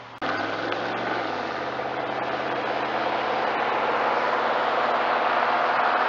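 V8 engine of a Pontiac Firebird Trans Am driving toward the listener, cutting in abruptly just after the start. The engine note dips about a second in, then the engine and road noise grow steadily louder as the car approaches.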